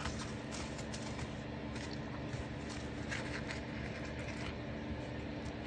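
Faint rustling and light ticks of fingers handling lace, paper and a sheer ribbon, a few scattered soft touches, over a steady low hum.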